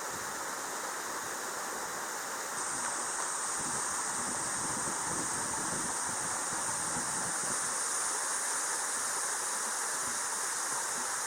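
Rushing creek water spilling over rocks, a steady hiss that grows a little louder and brighter about two and a half seconds in.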